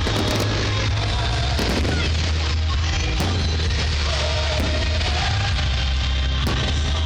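Loud rock music played over outdoor speakers, with a few irregular sharp cracks of fireworks bursting over it.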